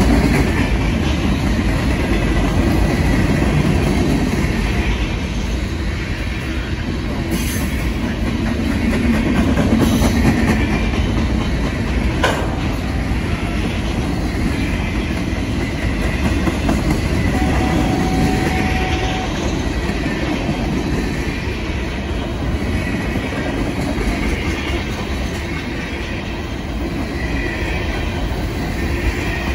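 Mixed freight cars of a manifest train (covered hoppers, boxcars and tank cars) rolling past close by: a steady rumble of steel wheels on rail with a clickety-clack over the joints and a single sharp click near the middle.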